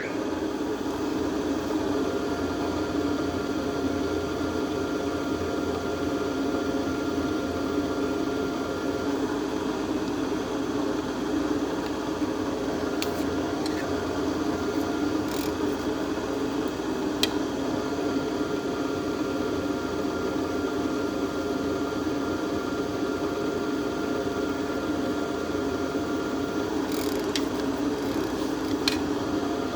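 Power drill running steadily as its bit cuts through a water pump bolt hole in a cast-iron 350 Chevrolet engine block, a few light clicks over the even motor sound.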